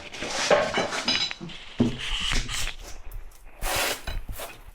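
Vinyl floor planks being handled: irregular rubbing and scraping with light knocks and clatter, and one longer scrape near the end.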